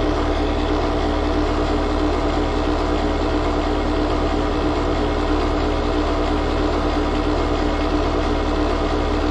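R-410A heat pump outdoor unit running steadily, its compressor making a harsh, 'full of rocks' sound over a steady hum. The compressor is barely pumping and drawing only 3.6 amps, which the technician takes for an internal mechanical failure.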